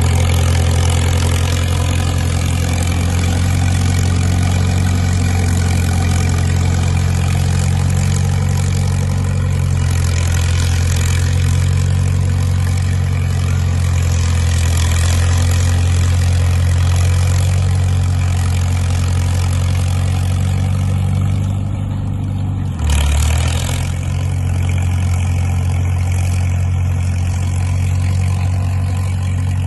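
Caterpillar crawler dozer's diesel engine running steadily with a deep, even drone as it pulls a train of freight sleighs, with a single sharp knock near the end.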